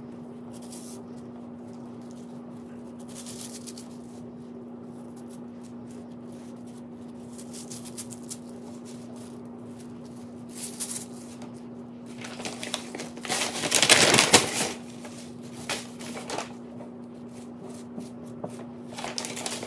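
Fresh goldenrod stems and leaves rustling as the leaves are stripped off by hand, in short bursts, with paper crinkling, loudest for a couple of seconds past the middle. A steady low hum runs underneath.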